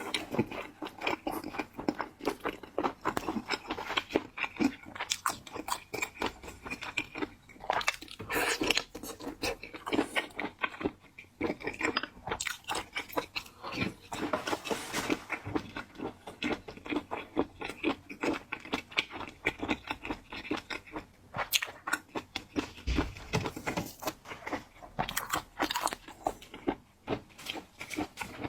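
A person eating seafood: continuous chewing with crunchy bites, a dense run of irregular crackles and clicks.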